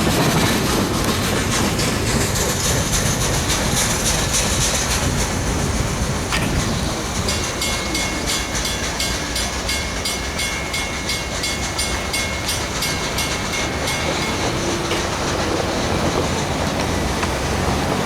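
Freight train cars rolling steadily past, their wheels clacking rhythmically over rail joints, with a faint thin squeal for a few seconds midway.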